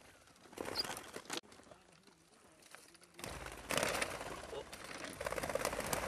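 Chukar partridges calling, with men's voices low in the background; a sharp click about one and a half seconds in.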